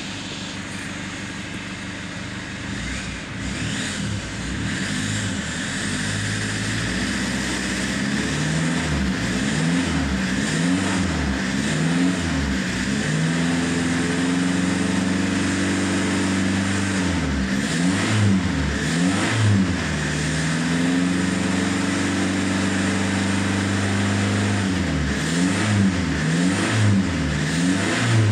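2009 Ford Ranger's 3.0-litre four-cylinder turbo diesel idling steadily, heard from the cab. From about seven seconds in it is revved over and over in quick rises and falls, with two longer holds near 3000 rpm in the middle and more quick blips near the end.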